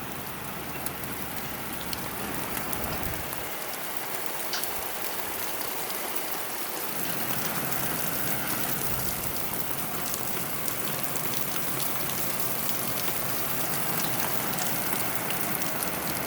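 Heavy rain pouring down in large, fast-falling drops: a steady hiss without wind, growing a little louder partway through.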